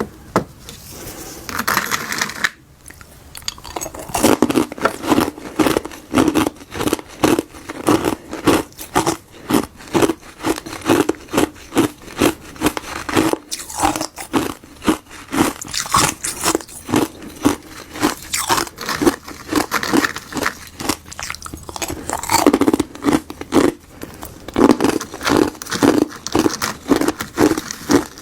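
Frozen tartary buckwheat and gardenia tea ice being crunched, a long run of crisp crunches about two a second.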